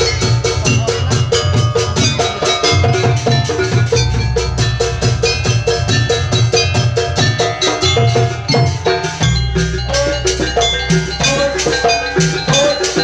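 Live jaranan gamelan music: drums beating a fast, even rhythm under the ringing of tuned metal gong-chimes and bells.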